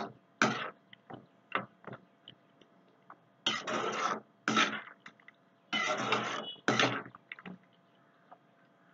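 A metal ladle stirring thick chicken gravy in an aluminium kadai, scraping against the pan in a run of strokes that get longer and louder from about three and a half seconds in, stopping about a second before the end.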